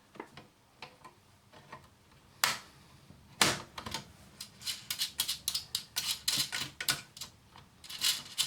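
Small metal clicks and taps of a screwdriver working on screws in an electronics case: a few scattered clicks, two sharper knocks, then rapid clicking from about halfway through.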